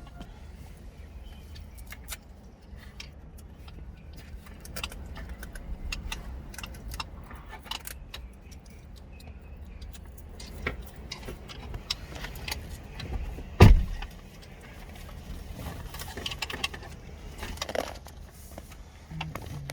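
Scattered small metallic clicks and rattles from hands working screws and a metal bracket, with one loud knock about fourteen seconds in.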